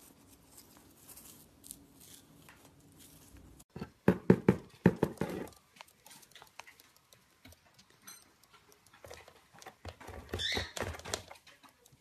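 A quick run of hollow knocks on a cardboard box about four seconds in, about eight in a second and a half. Near the end comes a second, shorter cluster of knocks with a brief squeak.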